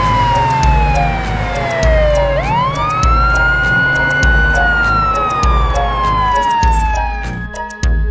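Cartoon police car siren in a slow wail: the pitch falls, sweeps quickly back up about two and a half seconds in, holds, then falls again and stops near the end. Background music with a steady beat plays under it.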